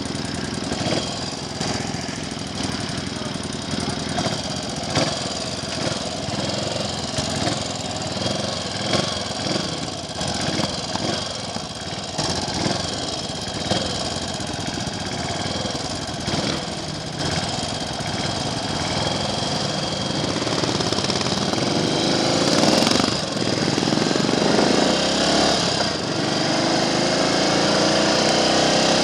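Triumph Trials Cub's single-cylinder four-stroke engine running at idle, then pulling away, its pitch rising with the revs, dropping briefly at a gear change and rising again near the end.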